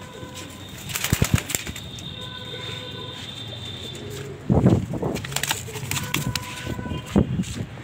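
Domestic pigeons cooing, with scattered sharp clicks and clatters. The loudest sound is a low burst about four and a half seconds in.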